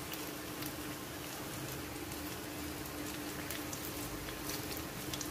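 Hot oil in a steel karahi sizzling and crackling steadily as handfuls of mixed-vegetable pakora batter are deep-fried, with more batter being dropped in. A faint steady hum runs underneath.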